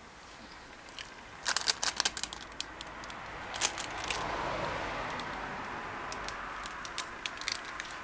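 Plastic chocolate-wafer wrapper crinkling and crackling close to the microphone as it is handled, in sharp clusters about one and a half and three and a half seconds in, with lighter crackles near the end. A broad rushing sound swells in the background about four seconds in and fades slowly.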